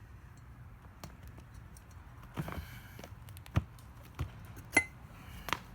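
A handful of sharp, separate clicks and knocks, some with a short metallic ring, as wheel parts are handled. The loudest comes a little before the end.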